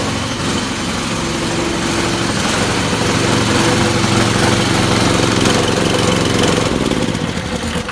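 Small petrol engine of a truck-mounted air compressor unit running steadily at speed, then cutting off right at the end.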